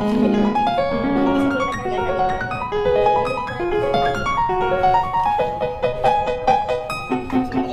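Background music: a piano melody of quick successive notes.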